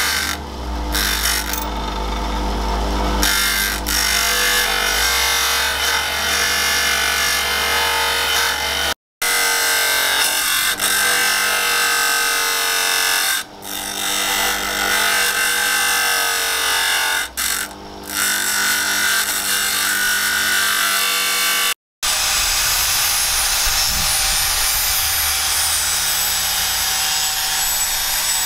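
Electric grinders grinding a leaf-spring steel knife blank: a steady motor whine with the hiss of the abrasive disc on steel, dipping briefly twice where the blade comes off the wheel. About two-thirds in, after an abrupt break, a handheld angle grinder with a sanding disc takes over on the blade.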